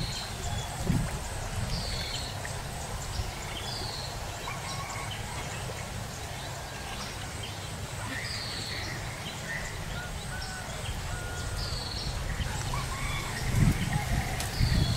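Birds calling outdoors: one bird repeats a short, high, falling call every second or two, with other birds chirping more softly, over a low rumble that picks up with a few dull knocks near the end.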